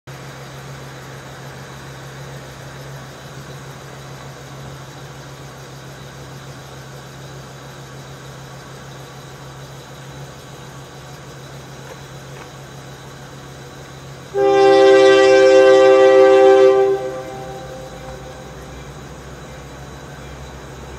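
Horn of an approaching EMD SD70MAC diesel locomotive: one long blast of about two and a half seconds, a multi-note chord, coming about two-thirds of the way in and sounded as the train nears a grade crossing.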